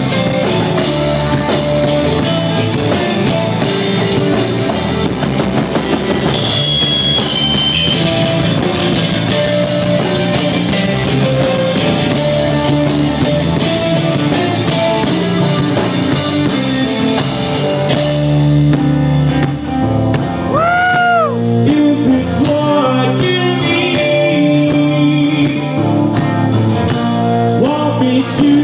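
Live rock band playing: electric guitar and drum kit, with a singer's voice over them.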